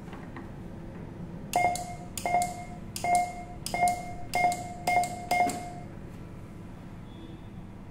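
Coblator II electrosurgical controller sounding about seven short beeps, roughly two-thirds of a second apart, each starting with a sharp click.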